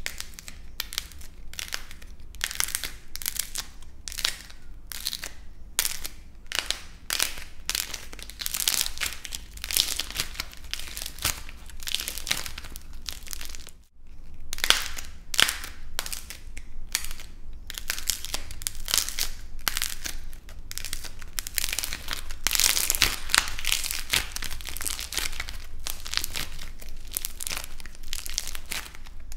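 Dried clay discs being cracked and crushed by hand: a dense run of sharp crackles and crunches as the hardened clay breaks apart, with one short silent break about halfway through.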